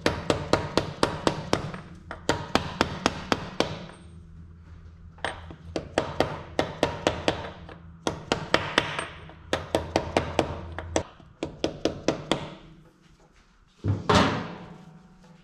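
A mallet tapping on a large thick socket used as a seal driver, pressing a new countershaft oil seal flush into a dirt bike's engine case. The taps come quickly, about four or five a second, in short runs with brief pauses, and there is one louder knock near the end.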